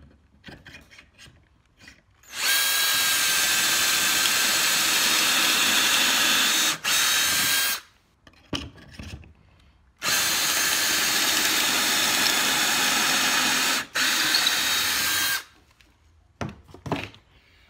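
Ryobi cordless drill spinning a pocket-hole bit through a 2x4 in a Kreg pocket-hole jig, drilling two pocket holes: two steady whining runs of about five seconds each, each with a brief catch shortly before it stops.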